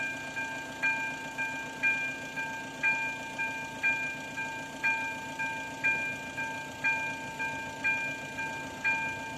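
Level-crossing warning bell ringing, struck about once a second, each strike ringing on. It sounds while the crossing is active, warning of an approaching train.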